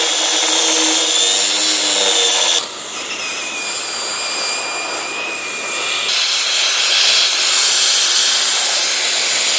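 Angle grinder cutting into a steel plate, with a steady whine over the grinding noise. From about 2.6 s to 6 s it gives way to the quieter hiss of a gas cutting torch, then the grinder cuts again.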